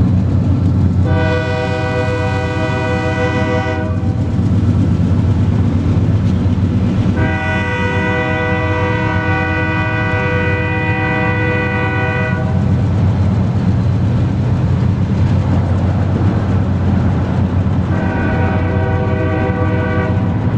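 Diesel locomotive air horn from the Union Pacific lead unit sounding three blasts: one of about three seconds, a longer one of about five seconds, then a shorter one starting near the end. Under it runs the steady low rumble of the oil train's tank cars rolling past.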